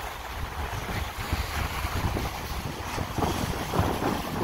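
Wind buffeting the microphone over choppy Gulf of Mexico waves washing against and over a concrete seawall, with a few louder splashes in the second half.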